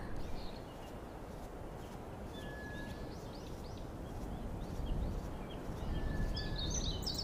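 Birds chirping now and then over a quiet, steady low rumble of outdoor ambience, with two short steady whistled notes. The chirps thicken into a brief burst near the end.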